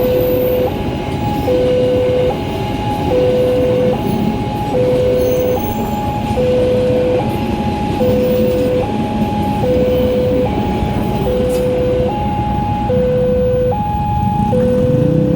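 Railway level-crossing warning siren sounding a two-tone hi-lo alternation, a lower and a higher note each held about 0.8 s in turn. It is a newly installed, uncommon type of crossing siren, pitched higher than the similar one at JPL 78. It sounds over a steady low rumble, and a motor rises in pitch near the end.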